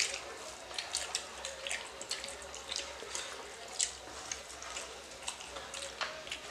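People eating rice and fish curry with their hands from steel plates: fingers mixing the wet rice and mouths chewing make soft wet squelches and irregular little clicks, several a second.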